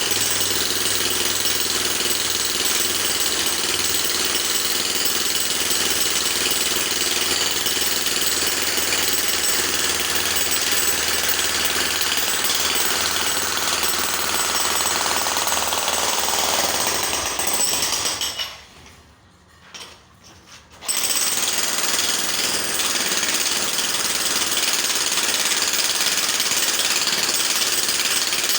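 Electric jackhammer hammering steadily. It stops for about two seconds roughly two-thirds of the way through, then starts again.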